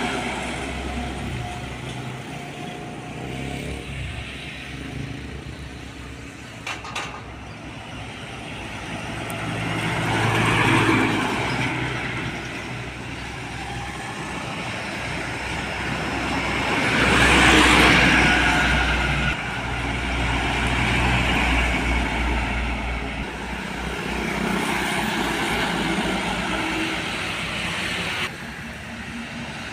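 Heavy trucks passing on a road with a low engine rumble and tyre noise, each one growing louder and then fading as it goes by. The two loudest pass about ten and eighteen seconds in.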